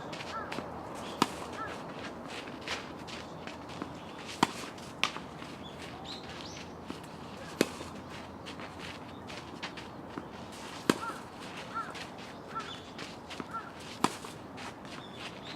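Tennis balls struck with a racket, a sharp pop every three seconds or so, with birds chirping in the background.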